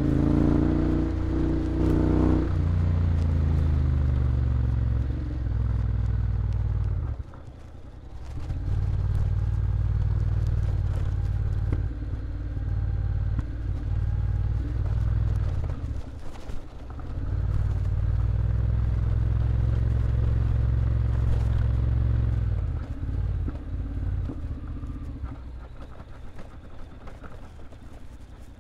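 Honda X-ADV 750's parallel-twin engine running as the scooter is ridden. The engine note drops sharply twice as the throttle is closed and comes back each time, then eases off over the last few seconds.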